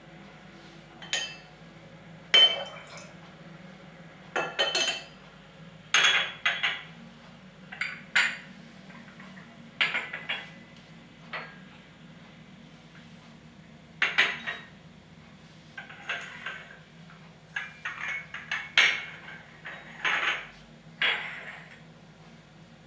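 Porcelain cups and saucers clinking against each other as they are handled, set down and gathered up: a string of sharp clinks, some in quick clusters, every second or so, each with a short ring.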